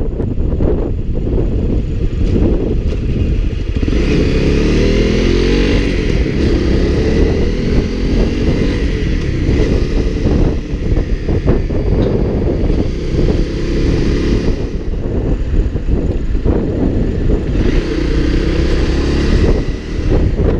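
Motorcycle engine running under way, its pitch rising and falling with the throttle, with wind rushing over the microphone.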